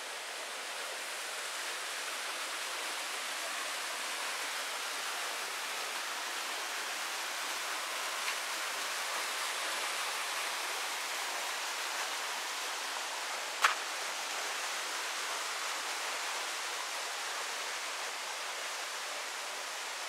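Steady rushing of river and waterfall water, with one sharp click about fourteen seconds in and two fainter ticks a few seconds before it.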